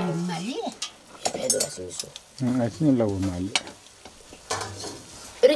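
Chopped greens being stirred and scraped in a metal wok, sizzling, with the utensil clicking against the pan. About halfway through comes a louder pitched, voice-like sound, about a second long.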